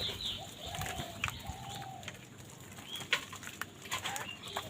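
Birds calling with several short, low, even-pitched notes, among a few sharp clicks or taps.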